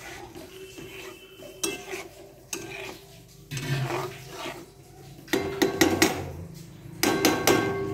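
Spatula scraping and knocking against the pan as thick spinach paste is stirred, in irregular strokes that get louder in the second half.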